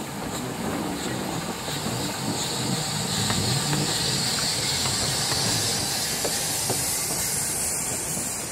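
Narrow-gauge steam locomotive passing close by with its coaches: a steady hiss of steam that swells as the engine goes past, over the low rumble of the train, with occasional clicks from the wheels on the rails.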